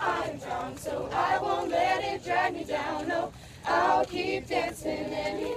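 A group of young voices singing together without instruments, many voices at once in a song or chant.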